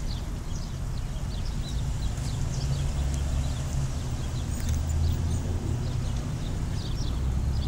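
Tow truck's engine running, a steady low rumble that grows a little stronger about three seconds in, with small birds chirping in short high notes over it.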